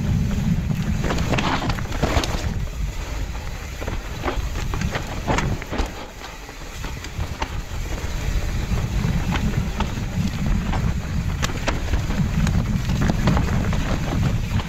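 Yeti full-suspension mountain bike rolling down a dirt trail, its tyres, chain and frame giving off scattered clicks and knocks over a heavy wind rumble on the microphone. The wind rumble eases briefly about six seconds in.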